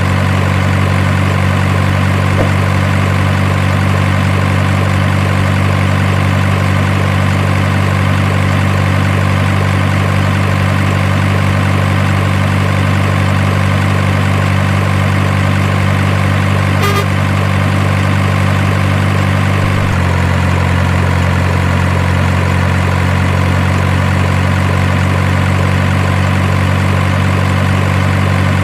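Simulated truck diesel engine idling: a steady, even low engine drone, of the kind played by an RC truck's sound unit or added as a sound effect. Its tone shifts slightly about twenty seconds in.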